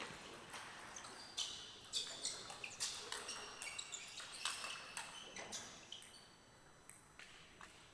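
Table tennis rally: the ball clicking sharply off the rackets and the table in a quick back-and-forth, about two hits a second, with shoes squeaking on the court floor. The hits thin out and stop after about six seconds.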